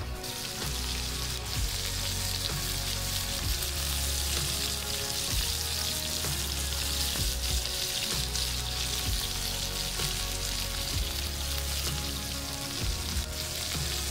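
Steaks sizzling and spitting in hot oil in a cast iron skillet over a campfire, a steady hiss with scattered pops, over background music with low bass notes.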